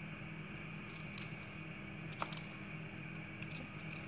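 Small kitchen knife cutting and scraping the papery outer layers and root end off lampascioni bulbs: a few short, crisp snips and scrapes over a faint steady hum.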